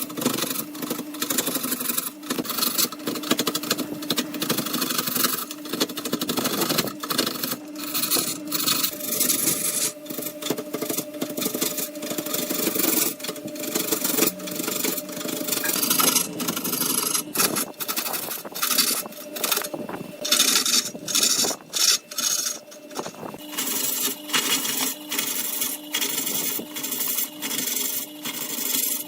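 Wood lathe running with a steady motor hum while a tool scrapes against the spinning wood in repeated, uneven passes.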